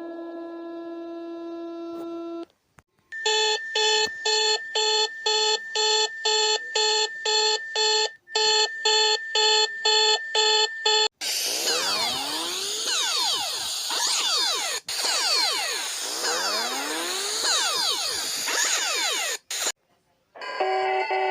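A run of electronic emergency-alert alarm tones. A steady chord-like tone cuts off, then an on-off beeping tone pulses about two and a half times a second for some eight seconds. Next comes a hissy wash of many overlapping siren-like sweeps rising and falling, and near the end a short stepped sequence of changing notes begins.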